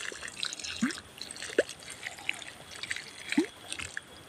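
Water dripping off the leaves of a freshly watered durian seedling into wet soil: three clear, short, rising plinks, spread over the few seconds, among fainter drips.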